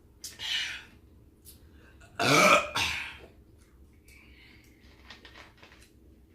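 A loud burp about two seconds in, dropping in pitch as it goes, after a short breathy throat sound. A few faint clicks follow near the end.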